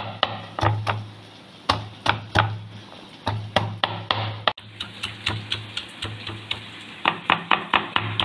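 A stone pestle pounding garlic cloves and ginger on a wooden chopping board, crushing them for ginger-garlic paste. The blows land as a run of sharp knocks, uneven at first and quickening to several a second about seven seconds in.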